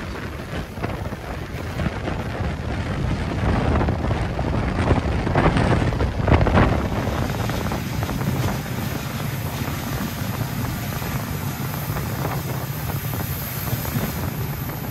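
Passenger train running along the track: a steady rumble with wind buffeting the microphone, briefly louder with a few knocks around the middle.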